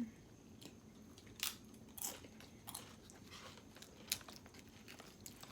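A person chewing and biting food, with a few crisp crunches spaced a second or so apart.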